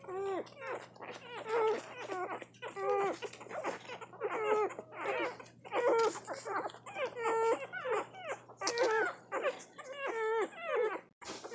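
Newborn puppies, about a week old, whimpering and squeaking while nursing: a steady run of short cries that rise and fall in pitch, about two a second, some overlapping.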